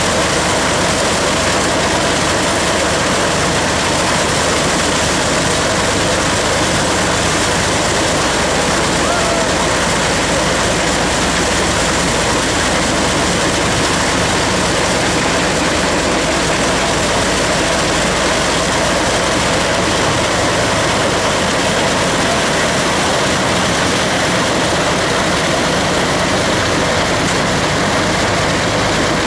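Belt-driven threshing machine running steadily under load: an even, unbroken loud clatter and rush from its belts, pulleys, shakers and straw blower as wheat is fed through.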